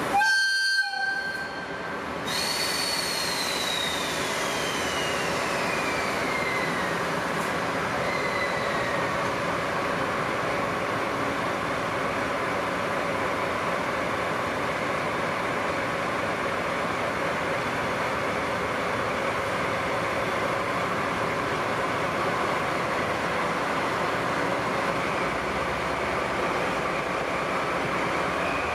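A short horn blast right at the start. Then a JNR DD51 diesel-hydraulic locomotive runs steadily, with a high whine that falls in pitch over the first few seconds.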